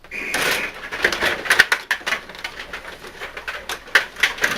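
Rod hockey game in play: a rapid, irregular clatter of clicks and knocks as the players on their rods strike the puck and the table. A short high tone sounds right at the start.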